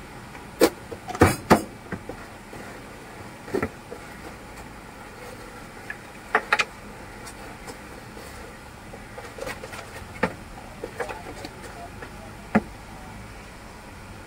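Irregular sharp metallic clinks and knocks of a steel spoon against a stainless steel bowl as pizza filling is mixed, over a steady background hum.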